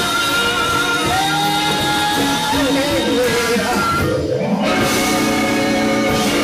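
Live blues band playing, with electric guitar, keyboard and congas under long held notes that bend in pitch.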